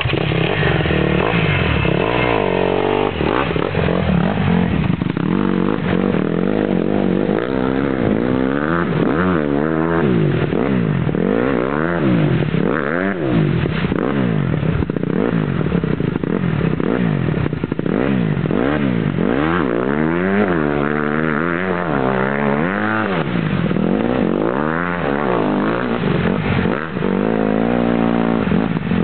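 Honda CRF150R's four-stroke single-cylinder engine revving up and down again and again under heavy load as the dirt bike pushes through deep mud and water.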